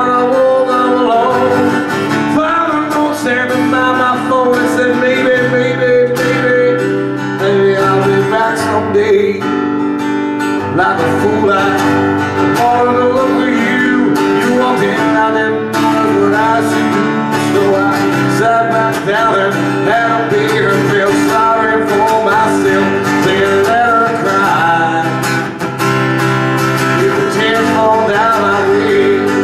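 Live acoustic song: a strummed acoustic guitar with a man singing lead into a microphone.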